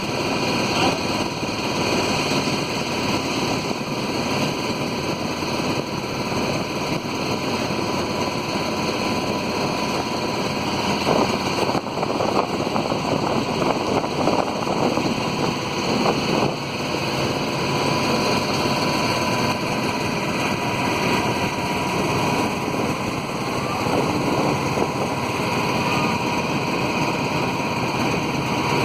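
A boat's motor running steadily, with wind buffeting the microphone.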